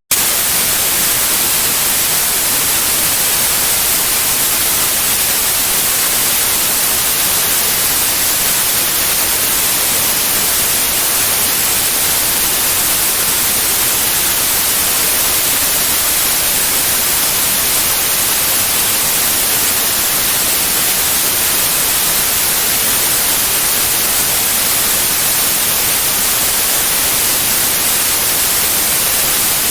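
Steady white noise: an even, unchanging static hiss, strongest in the highs, that cuts out for a split second at the very start.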